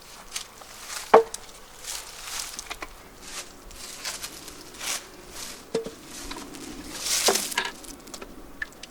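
Beehive parts and a syrup bucket feeder being handled while a hive is opened for feeding: scattered knocks and scrapes, a sharp knock about a second in and a louder clatter about seven seconds in.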